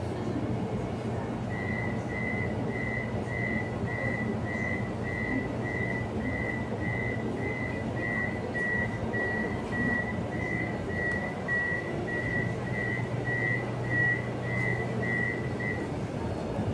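Mexico City Metro train's door-closing warning beeper sounding a long run of short high beeps, roughly two to three a second, over the low hum of the stopped train. The beeping starts about a second and a half in and stops shortly before the end.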